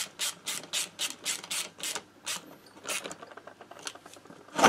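Ratchet wrench clicking in quick back-and-forth strokes, about four a second, as bolts are tightened by hand. The strokes thin out about two seconds in, then come as a quicker run of fine clicks near the end.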